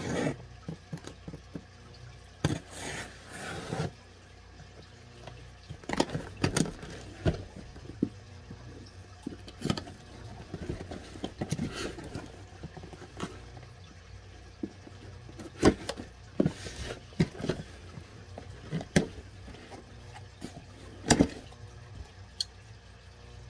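A cardboard shipping box being opened and unpacked by hand: irregular scrapes and rustles of cardboard and packing, with scattered knocks and clicks.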